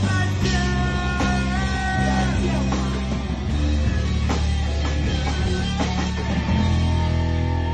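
A rock band playing live at rehearsal: electric guitar and drum kit, with a singer on the microphone.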